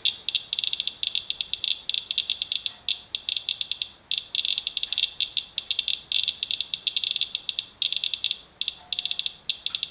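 Medcom Radalert Inspector Geiger counter clicking rapidly and irregularly in uneven clusters, each click a count from a rain-wiped paper towel sample. The sample is covered with a paper towel to block alpha, so the counts are beta and gamma, around 20 times background.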